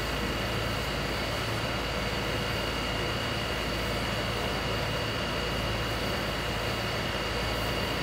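Steady engine drone of fire-service machinery, unchanging throughout, with a low hum and two steady high-pitched whines over it.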